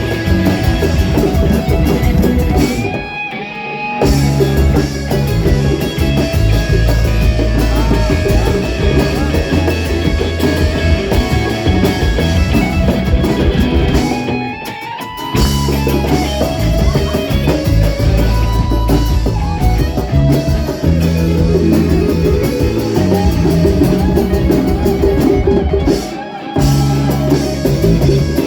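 Rock band playing an instrumental passage of the song, with guitar, bass and drum kit. The band drops back briefly three times.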